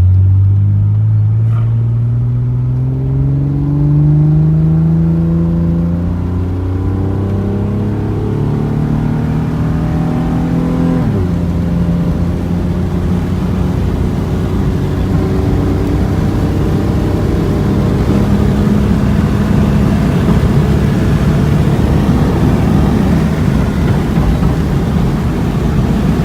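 Car engine pulling as the car drives off, its note climbing slowly for about eleven seconds, then dropping sharply at a gear change before rising again under steady road noise.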